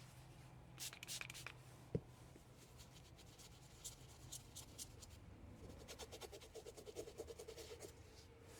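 Faint handling noises from hands working a small circuit board: a few light clicks, one sharp tap about two seconds in, then a run of quick, faint scratching strokes in the second half, like rubbing at a dirty chip.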